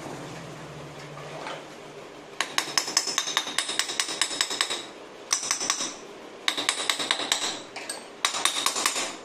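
Rapid metallic clicking and tapping with a bright ring, in four bursts starting about two seconds in: the Bajaj Pulsar 150 cylinder barrel being worked down over the piston and studs onto the crankcase.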